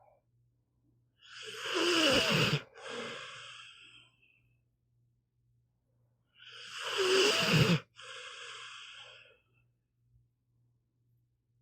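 A sleeping pit bull snoring: two breaths about five seconds apart, each a loud, rasping snore followed by a softer breath, over a faint steady low hum.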